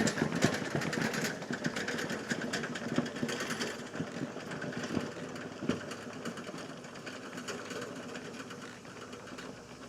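Remote-controlled tracked mower with a dozer blade pushing gravel: a fast, even mechanical clatter from its tracks and drive, growing fainter as the machine moves away.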